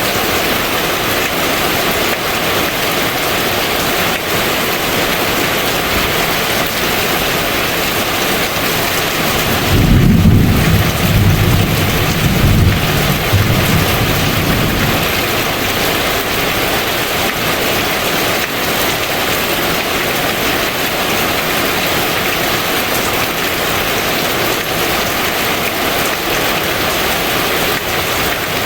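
Steady rain falling, with a low roll of thunder about ten seconds in that rumbles for about five seconds before fading.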